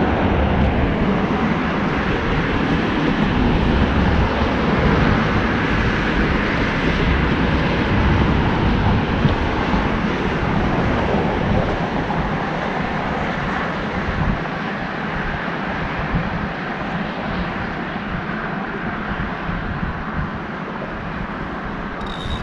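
Wind buffeting the microphone: a loud, continuous rush with a fluttering rumble underneath, swelling over the first few seconds and slowly easing off.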